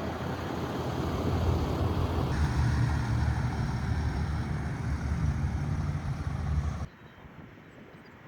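Steady engine and road noise of a moving vehicle, heaviest in the low rumble, which cuts off abruptly near the end to a much fainter background.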